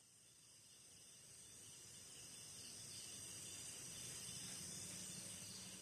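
Very faint outdoor ambience with a high insect-like chirring, fading in about a second and a half in and fading away at the end.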